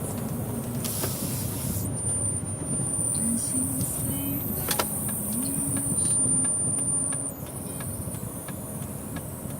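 Hiss from the car speakers of a 10-inch Android double-DIN head unit, an unwanted fault noise that comes and goes. A thin high-pitched whine joins it about two seconds in and cuts off about seven seconds in, over a low rumble.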